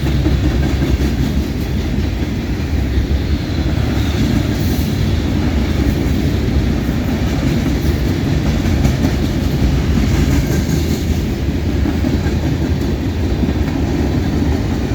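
Freight cars of a long CSX mixed freight train rolling past at close range. Steel wheels on the rail make a steady, loud rumble with clickety-clack, and no locomotive engine is in the mix.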